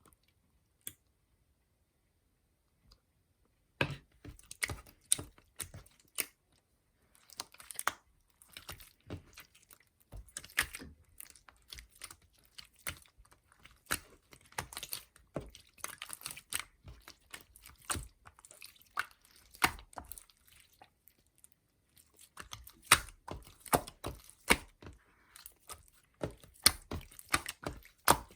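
Irregular close-up clicking and tapping, starting about four seconds in, with a short pause about two-thirds of the way through.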